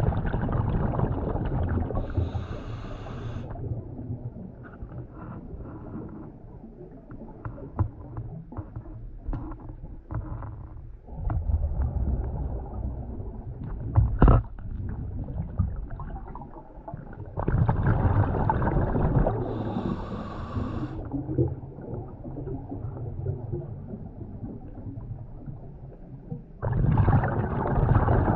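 A diver's scuba breathing heard underwater: loud bursts of exhaled bubbles rumbling and gurgling four times, some ending with a hiss from the regulator, with quieter crackling between breaths. A single sharp tap comes about fourteen seconds in.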